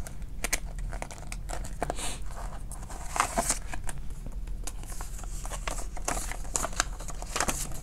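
Paper prop-money bills rustling and crinkling as hands sort and count them, with the clear plastic pouches of a cash binder crinkling as a bill is slid in; an irregular run of short rustles and ticks.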